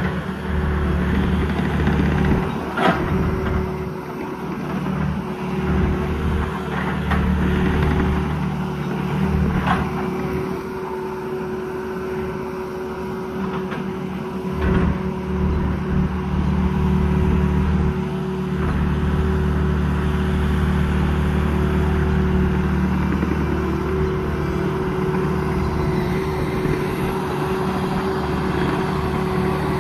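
Ditch Witch SK3000 mini skid steer's engine running steadily as the machine drives up to a large log, grabs it and carries it, with a few sharp knocks along the way.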